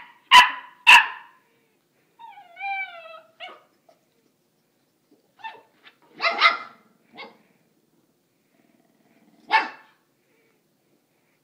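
Dog barking: three loud, quick barks, then a wavering, falling whine about two seconds in, followed by scattered single barks and short yips.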